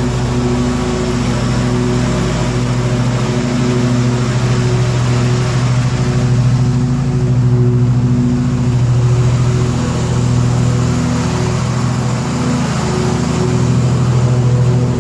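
Terramite T-2 backhoe's engine running steadily, a loud, even hum that swells and eases slightly in level.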